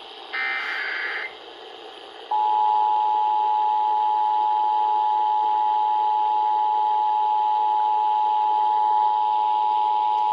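Emergency Alert System broadcast: a short buzzy burst of SAME header data about half a second in, then about a second later the EAS two-tone attention signal (853 Hz and 960 Hz together) begins and holds steady for about eight seconds. It is the alert tone that announces an emergency message, here an Amber Alert.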